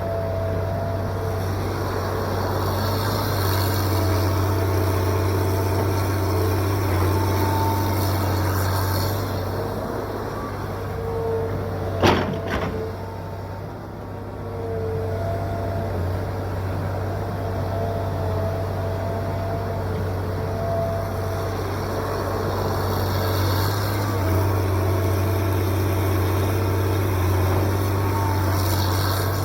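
John Deere 790ELC excavator's diesel engine running steadily as it works, with short whining tones coming and going over the drone. One sharp clack sounds about twelve seconds in.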